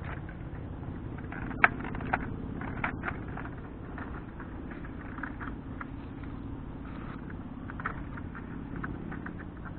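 A Nerf blaster firing a shot: one sharp snap about a second and a half in, followed shortly by a smaller click, then scattered light clicks and taps, over a steady low hum.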